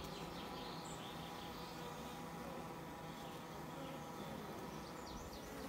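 Honeybees on an open comb buzzing, a faint, steady hum of the colony.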